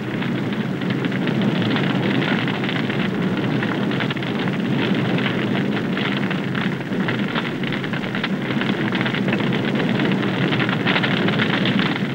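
Fire burning fiercely in a polyurethane-foam couch, a steady rushing noise with dense crackling throughout: the fire has grown out of control.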